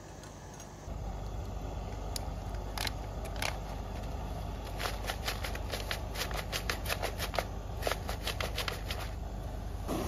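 Crinkling and crackling of a foil-lined freeze-dried meal pouch being handled and opened, a string of irregular sharp crackles that thickens in the second half.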